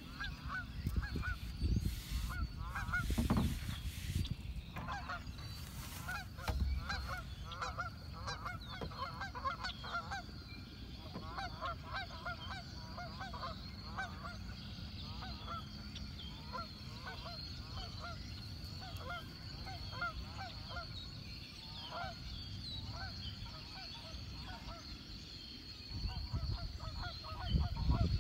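A flock of geese honking, many short calls overlapping in quick, uneven runs that carry on throughout. A low rumble on the microphone is strongest at the start and again near the end.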